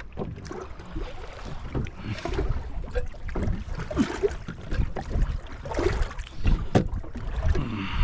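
Water slapping against the hull of a small fishing boat, with wind buffeting the microphone and scattered sharp knocks.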